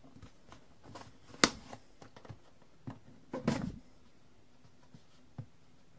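Tape being peeled off a cardboard box, with sparse handling clicks: a sharp tick about one and a half seconds in and a brief ripping rustle about halfway through.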